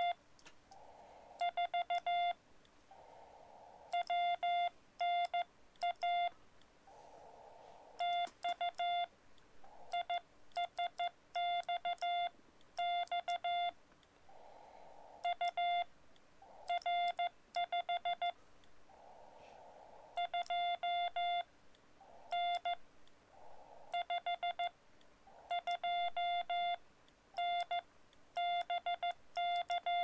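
Morse code (CW) sidetone from a Xiegu X-6100 transceiver: one steady pitch keyed on and off in dots and dashes from a paddle, sent in groups. Short stretches of narrow receiver hiss fill the gaps between groups.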